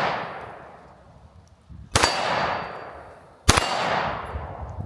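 Two 9mm pistol shots from a Sig P365 X Macro, about a second and a half apart, each followed by a long ringing decay.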